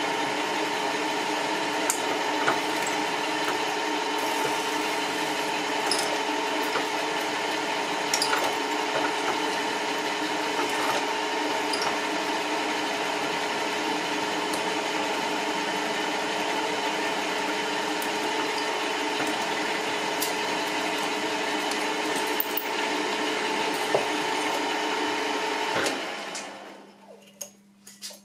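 Pillar drill running, boring an aluminium block with an 11 mm bit: a steady motor hum with a few scattered ticks. Near the end the drill is switched off and runs down.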